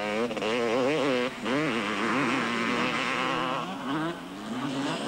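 Motocross motorcycle engine revving hard, its pitch swinging up and down quickly as the throttle is worked.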